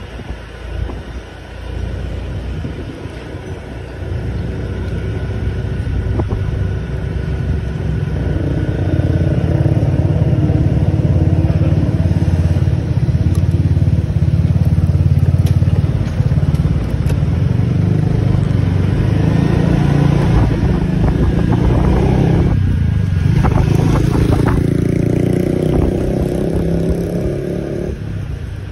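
Motor scooter being ridden, its engine running steadily and growing louder over the first several seconds as it picks up speed, with a few brief clatters about three-quarters of the way through.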